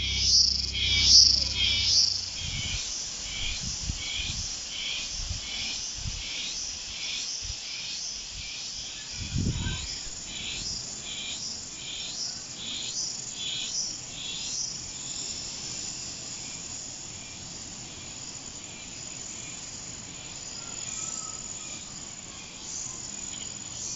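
Insects calling in the orchard: a rhythmic series of high chirps about twice a second that fades after about fifteen seconds into a steady high-pitched drone. There are a few low thumps in the first few seconds and another about ten seconds in.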